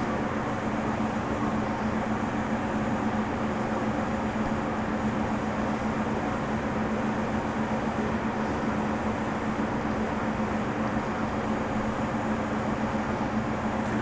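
Steady, unchanging mechanical hum with a low droning tone, like a running machine or fan.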